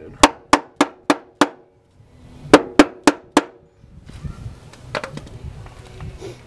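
Rubber-tipped hammer tapping a suspension bolt into place while fitting a drift angle kit. There are two runs of even, ringing taps, about three a second, then quieter clatter of metal parts being handled.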